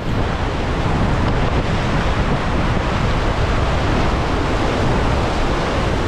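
Steady rush of river water around an inflatable raft, with heavy wind noise on the microphone.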